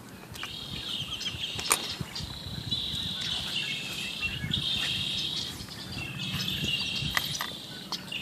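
High chattering trills from a calling animal, repeated in bouts of a second or two, over a low rumbling background, with a few short clicks.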